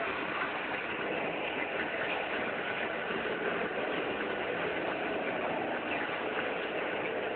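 Steady engine noise: a motor running at an even, unchanging pitch and level with no breaks.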